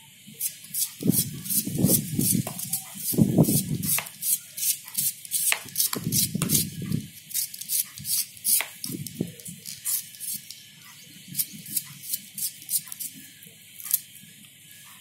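Kitchen knife slicing through a red onion held in the hand: a run of crisp cuts, about two or three a second, thinning out near the end. Duller low handling noises come between about one and seven seconds in.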